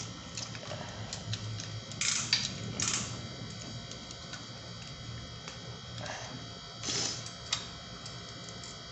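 Metal folding multi-tool clicking and rattling against a bicycle crank arm as its hex key tightens the crank arm bolts, in a handful of short clinks and scrapes about two to three seconds in and again around six to seven seconds in, over a steady low hum.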